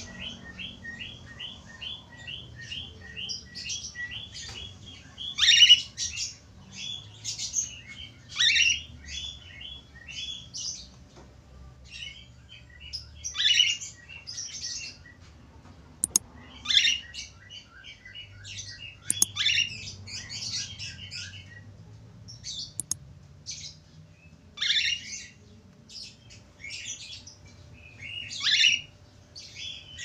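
Cockatiel singing: a quick run of short, evenly repeated chirps at the start, then a long string of whistled and harsher chirping notes with short gaps between them. Two sharp clicks come about midway.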